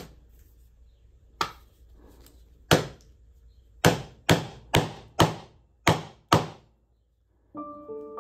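Wooden mallet striking a chisel handle, driving the steel chisel into a wooden board: eight sharp blows, the last six coming quicker. Piano music comes in near the end.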